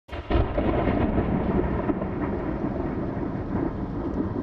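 Thunder: a low rolling rumble that starts suddenly and slowly dies away.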